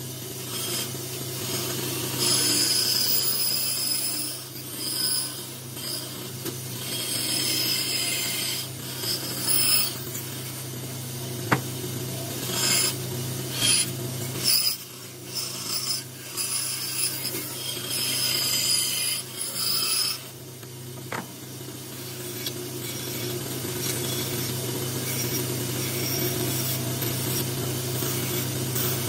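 Bandsaw running with a steady motor hum while its blade cuts through a small block of wood. The cutting noise comes in stretches with short pauses as the piece is turned along the outline, and is lighter over the last several seconds.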